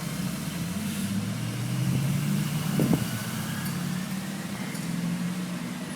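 Car engine idling, a steady low hum, with a brief knock about halfway through.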